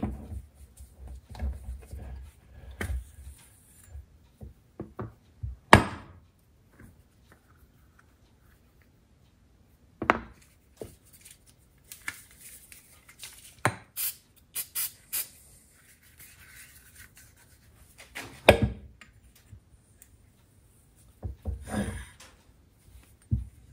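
Rubber fork gaiters being pushed and rubbed onto a chrome motorcycle fork tube on a workbench: scattered knocks and rubbing as the tube is handled, a few sharp ones standing out. About halfway through come short hisses, fitting silicone spray lube applied to help the tight covers on.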